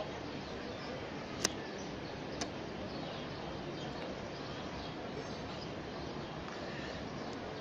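Steady outdoor background noise picked up by a smartphone microphone, with faint bird chirps and two sharp clicks about a second apart near the start.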